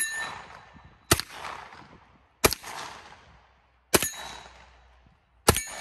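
A compact rifle fired one shot at a time, five shots in all, about one every second and a half, each trailing a long fading echo. A short ringing tone follows the first and last shots.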